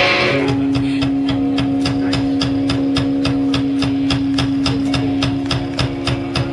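A live band starting a song: one note held steady over a ticking beat of about five clicks a second, with a low pulse beneath.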